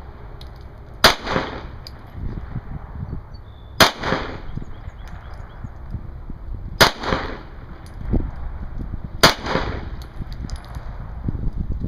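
Four single pistol shots from a Glock handgun, fired slowly about two and a half to three seconds apart, each with a short echo. Wind buffets the microphone between shots.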